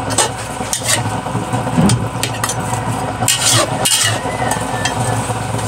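Metal spatula scraping and knocking against an aluminium wok as chicken simmers and sizzles in coconut milk, with a steady low hum underneath. The stirring keeps the coconut milk from curdling.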